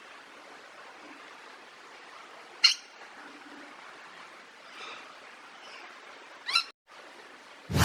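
A parrot giving short, sharp squawks, a few seconds apart, over a steady background hiss. The loudest comes about a third of the way in, with another near the end. A loud sudden sound at the very end spans from the lowest to the highest pitches.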